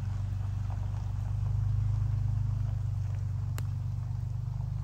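A motor vehicle's engine running at low speed, a low pulsing rumble that swells about two seconds in and then eases off as it moves away. There is a single sharp click about three and a half seconds in.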